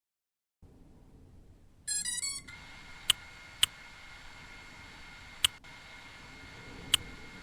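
A quick run of high electronic beeps lasting about half a second, followed by four sharp clicks spread over the next few seconds, over a faint steady hiss and a thin high tone.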